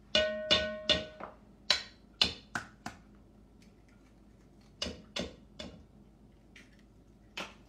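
Eggs knocked against a stainless steel mixing bowl. Three quick sharp taps at the start set the bowl ringing, then come lighter clicks of shell on metal, in two small clusters and a single one near the end.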